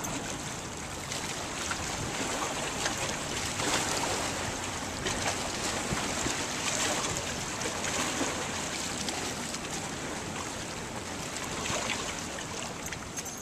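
Wind buffeting the microphone over choppy bay water, with small waves lapping and splashing; a steady rush of noise with brief gusts and splashes.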